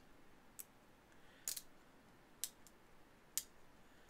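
Faint handling of stiff cardboard trading cards, with four sharp clicks about a second apart as cards are flicked or snapped through by hand.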